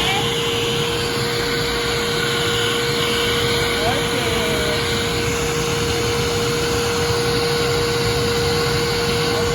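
Pet hair dryer blowing steadily on a stronger setting: an even rush of air with a constant motor whine.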